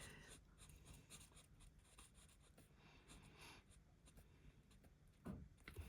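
Faint scratching of a marker nib on cardstock as a stamped image is coloured in, with a brief louder scuff near the end.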